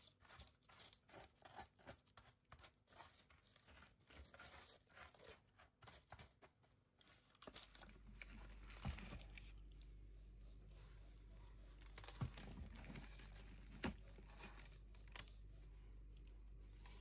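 Faint rustling and crinkling of parchment paper and plastic cling wrap as granola with melted chocolate is spread in a baking tray and pressed down by hand through the wrap. From about halfway a low steady hum sits underneath, with a few soft taps.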